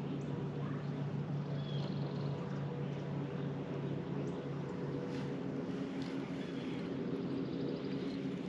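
Steady low hum of a bass boat's bow-mounted electric trolling motor, with a few faint short bird chirps.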